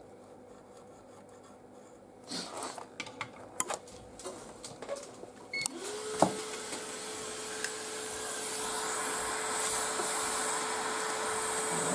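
Scattered clicks and knocks of tools being handled. About six seconds in, a hot-air rework station's blower switches on with a click. Its fan whine rises quickly to one steady pitch, over a rush of air that grows louder, as it heats up to desolder a chip from a laptop motherboard.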